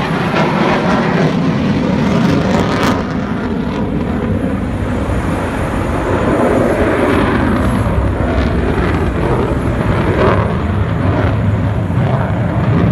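Fighter jet engines in a display flight, a loud, steady rumbling roar.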